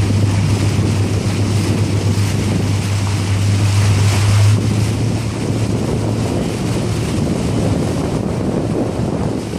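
Heavy wind buffeting the microphone over open water, with a steady low hum that fades away after about six or seven seconds.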